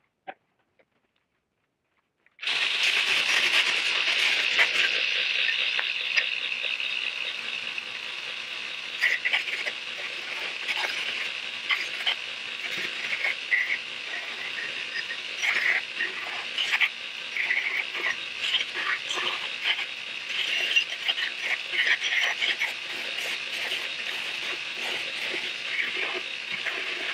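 After about two seconds of near silence, a belt grinder starts up with a steel piece held against its abrasive belt: a steady grinding hiss with irregular scrapes as the metal is pressed and moved on the belt.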